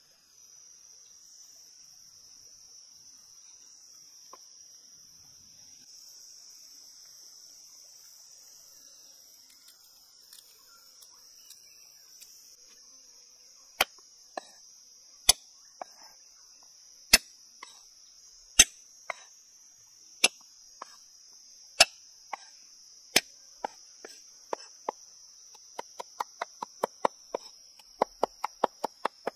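Steel cleaver striking a wooden chopping block on garlic: sharp single chops about every second and a half from about halfway, then quick rapid chopping near the end as the garlic is minced. A steady high buzz of insects sounds throughout.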